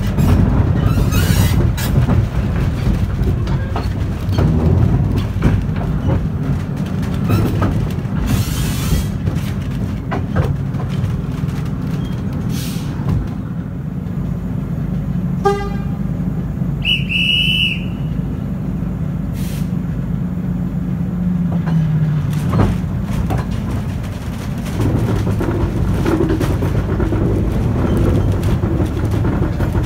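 Train ride behind a Ruston 165DS diesel shunter: the locomotive's engine runs with a steady low rumble and wheels clicking over the rails, with short horn toots about halfway through. The engine note drops about two-thirds of the way through as the train slows.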